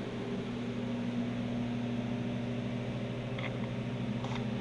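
Steady electric hum over an even hiss, the running noise of a fan or similar machine in the garage, with two faint short clicks near the end.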